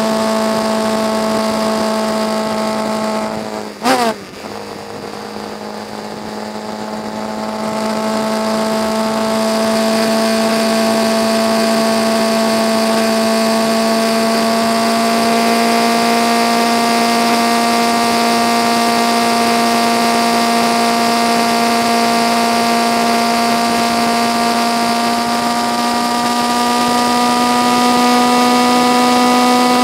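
Motorcycle engine running steadily at road speed, heard from the bike itself. About four seconds in there is a short sharp crack with a quick falling sweep and the sound dips. After that the engine note climbs slowly as it pulls on.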